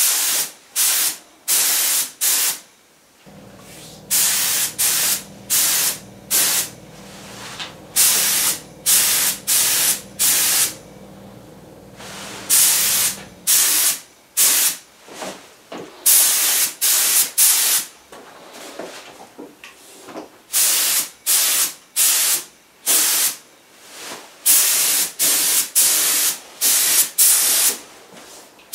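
HVLP spray gun spraying nitrocellulose lacquer: a rapid series of short hissing bursts of air and paint, each under a second or so, as the trigger is pulled and released pass after pass.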